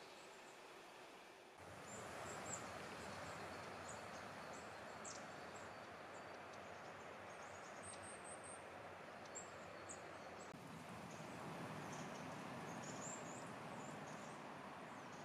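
Quiet woodland ambience: a steady soft hiss with small birds chirping and calling now and then. The background hiss steps up a little about a second and a half in.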